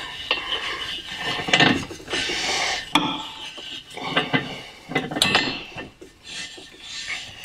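Irregular metallic clinking, scraping and rubbing of hand tools on car parts, with a couple of sharper clanks about three and five seconds in.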